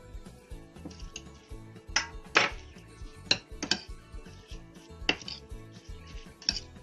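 A tablespoon clinking and scraping against a mixing bowl, about six separate knocks spread unevenly, as sugar is added to coleslaw and stirred in. Background music plays underneath.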